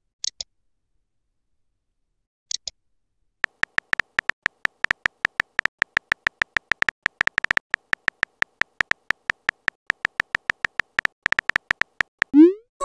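Texting-app keyboard sound effects: brief pairs of high clicks twice, then a long run of rapid key-tap ticks, several a second, each with the same pitch, as a message is typed. Near the end comes a short rising whoosh, the loudest sound, as the message is sent.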